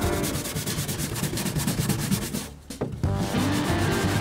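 Stiff brush scrubbing degreaser foam against the metal inside an aircraft's tail compartment, in rapid back-and-forth strokes, with background music. The sound dips briefly about two and a half seconds in.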